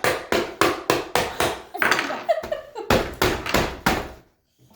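Rapid hard knocking, about four blows a second, stopping near the end: something hard being struck over and over by hand to break it open.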